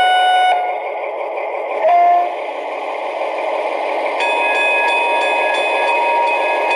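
Sound decoder of a Lenz O gauge DR V100 diesel-hydraulic locomotive model playing a diesel engine running sound through its small onboard speaker. A held horn-like tone ends just under a second in, another short one sounds about two seconds in, and a steady high tone joins about four seconds in.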